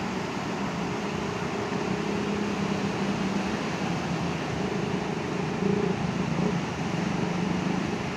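Steady rush of beach surf with a low hum underneath that comes and goes, strongest near the end.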